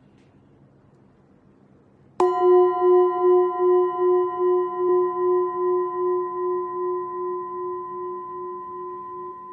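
Tibetan singing bowl struck once about two seconds in, then ringing on with several pure tones over a low main note, its loudness wavering in slow pulses as it gradually fades.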